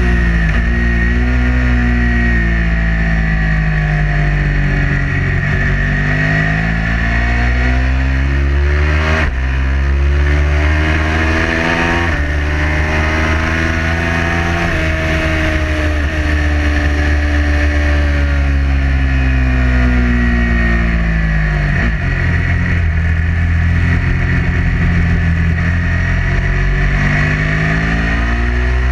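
Ducati 999's V-twin engine heard from the bike itself at speed: revs climb and fall through the corners, with sudden drops in pitch at gear changes. A heavy wind rumble on the microphone runs underneath.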